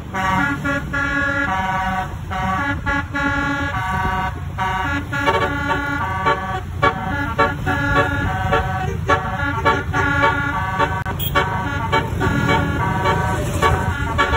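Bus basuri telolet horn, a multi-tone musical air horn, playing a quick tune of short stepped notes over a low rumble.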